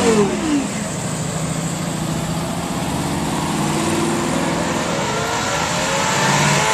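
A car's engine falling back from a rev, running steadily, then rising in pitch as it accelerates over the last couple of seconds.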